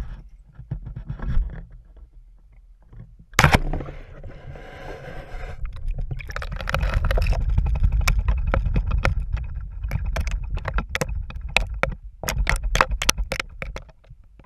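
Shallow surf water splashing over a steady low rumble. There is one sudden loud splash about three and a half seconds in. Then comes a long stretch of splashing and dripping as a gigged stingray is lifted out and flaps on the gig.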